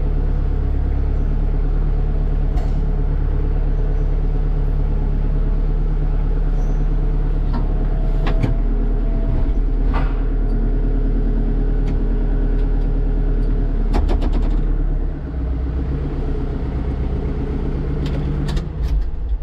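Kubota tractor's diesel engine running steadily, heard from inside the cab, with a few sharp clicks and knocks from the controls. About three-quarters of the way through, the engine note drops as it is throttled down.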